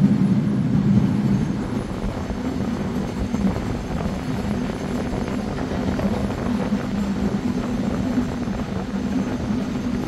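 Steady low rumble of aircraft engines, an unbroken drone with no distinct events.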